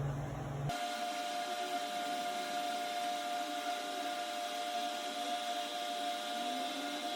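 A small electric motor running with a steady, even whine that starts abruptly just under a second in.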